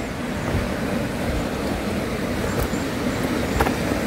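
Steady rushing of a small waterfall, with a couple of faint taps of footsteps on concrete.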